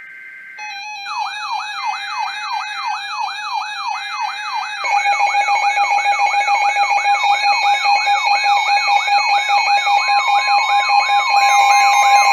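Electronic alert siren: a whooping tone rising over and over, about three times a second, layered with steady alarm tones that build up and grow louder about five seconds in.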